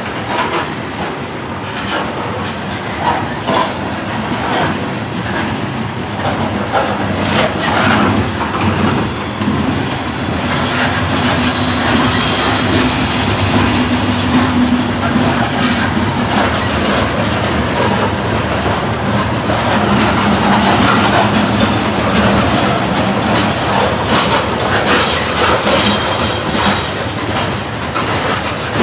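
Loaded coal train cars rolling past at close range: steel wheels clicking and clattering over the rails amid a continuous heavy rumble.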